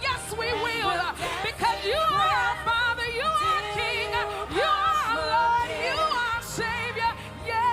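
Gospel worship singing: voices sing with vibrato and quick melodic runs over a steady low instrumental backing.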